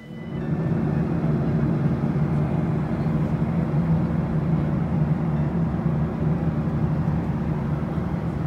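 Airliner cabin noise: a steady low drone of engines and rushing air heard from inside the passenger cabin.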